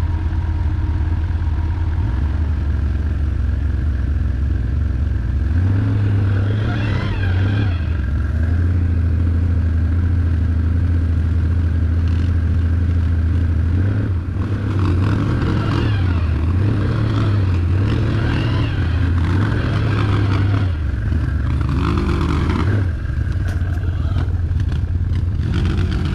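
Can-Am ATV engine running on the move, its pitch rising and falling repeatedly as the throttle opens and closes.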